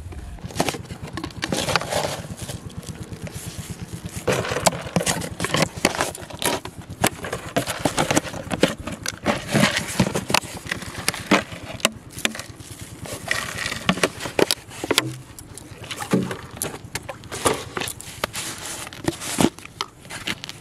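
Hands handling plastic jars and their lids: irregular clicks, taps, scrapes and crinkling of plastic.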